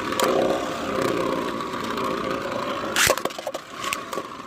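3D-printed Beyblade spinning tops whirring steadily in a battle stadium, with scattered clicks as they collide and a sharp clack about three seconds in.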